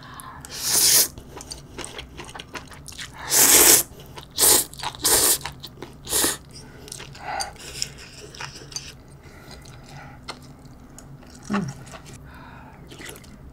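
Ramyeon noodles being slurped: five short slurps in the first six or so seconds, the longest and loudest about three and a half seconds in. Then quieter chewing.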